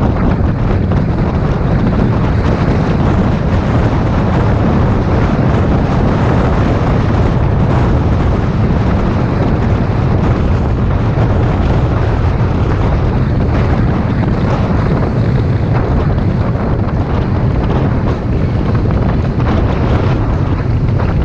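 Steady, loud wind buffeting the microphone of a camera on a moving bicycle, a low rumble that continues with no breaks.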